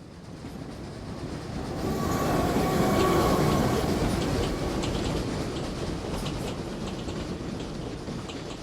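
Train passing: a rumble that swells to a peak about three seconds in and then slowly fades, with wheels clicking over the rail joints.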